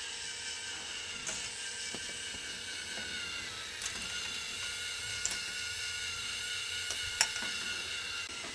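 Small electric motor of a K'nex ball lift whining steadily as it turns the crankshaft, with the plastic mechanism rattling. A few sharp plastic clicks as balls are set in and knock together, the loudest about seven seconds in.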